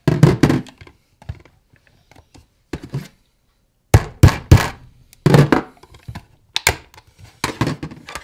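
A flathead screwdriver wedged in the seam of a Seagate Backup external hard drive enclosure being struck again and again to drive it in, sharp thunks in irregular bursts of two to four blows. The blows are forcing out the enclosure's stubborn middle strip and its clasps.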